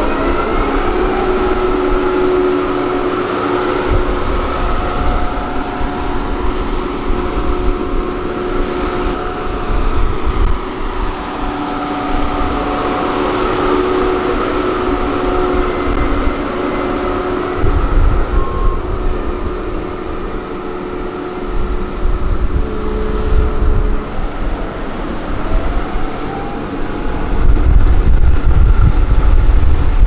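Pneumatic-tyred road rollers running as they compact fresh asphalt: a steady engine drone with whining tones over it, the low rumble growing louder near the end as a machine comes closer.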